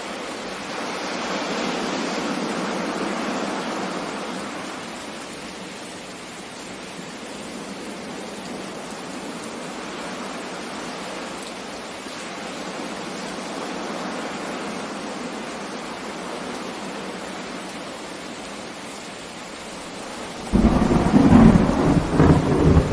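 Steady rain and sea hiss, swelling and easing. Near the end, a sudden loud clap of thunder that rumbles on.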